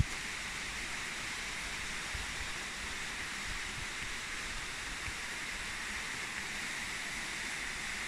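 Shallow stream running over rocks: a steady, even rush of water.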